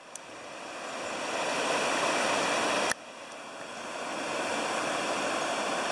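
River water rushing over a shallow rapid among rocks, a steady rushing sound. It builds up, drops suddenly about three seconds in, then builds again.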